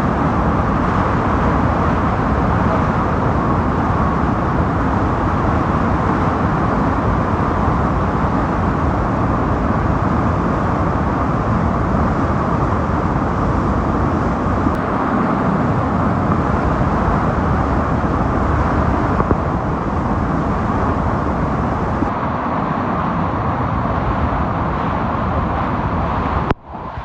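Steady, loud roar of water pouring down Niagara's Bridal Veil Falls, with no break in it; it cuts off abruptly near the end.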